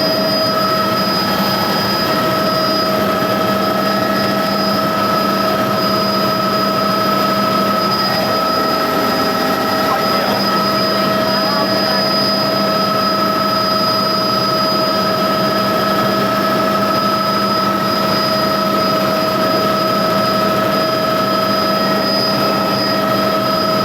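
A helicopter in flight: a steady high turbine whine over a constant rush of rotor and engine noise.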